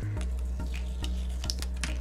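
Light, irregular clicks and taps of fingers handling a Dell Latitude E6440 CPU fan and heatsink assembly while picking tape off it, over background music.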